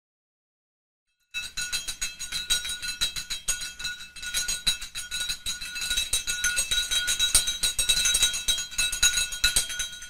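Medium metal cowbell, sold as a dog bell, shaken by hand: its clapper clanks fast and continuously against the body over a steady ringing tone. It starts about a second in and stops just at the end.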